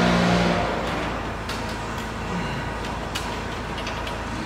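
Loud steady mechanical hum of shop background machinery that fades out about half a second in, leaving a quieter hiss with a few faint clicks and taps, then comes back near the end.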